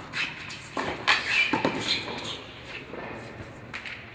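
Indoor doubles tennis play on a hard court: a few sharp racket-on-ball hits around the first second, followed by short high-pitched squeaks of court shoes.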